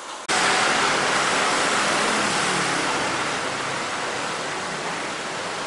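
A loud, steady rushing noise that cuts in abruptly just after the start and then holds, easing off only slightly.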